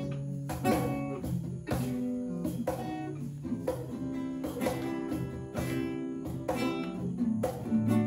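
Acoustic guitar strummed, chords ringing on between repeated strokes.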